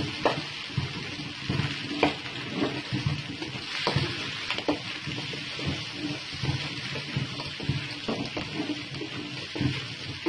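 Chicken pieces and vegetables sizzling in a karahi while a spatula stirs them, with irregular scrapes and clinks of the spatula against the pan.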